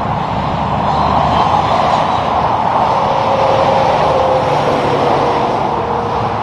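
Kenworth semi-truck pulling a box trailer driving past on a highway: steady tyre and engine noise that swells as it goes by and eases off near the end, with a faint whine that drops slightly in pitch.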